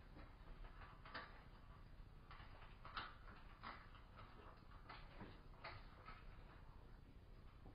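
Near silence: room tone with faint, irregular clicks.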